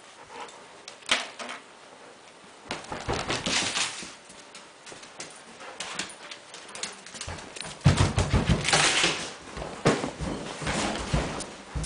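A dog moving about on a hardwood floor: clicking claws, thumps and rustles in irregular bursts, quiet at first and loudest about eight seconds in.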